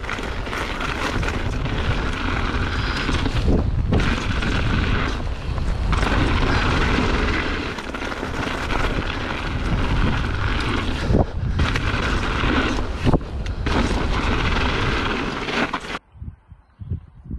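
Wind buffeting a bike-mounted action camera's microphone and mountain bike tyres rolling over loose gravel, with a few sharp knocks from bumps. About a second before the end it cuts off suddenly to a much quieter stretch with a few soft thumps.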